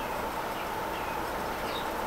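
Vintage 36-inch SMC Laguna ceiling fan running: a steady whir of the motor and blades with an even hum, and a few faint high chirps now and then.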